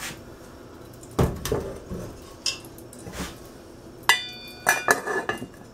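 Metal cookware clanking: knocks as a heavy pot is handled and set down, then just after four seconds a ringing clang as a metal lid is put on a pot, followed by a few lighter clinks.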